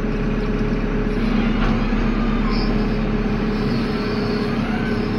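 JCB backhoe loader's diesel engine running steadily, heard from inside the cab, with a faint rising whine near the end.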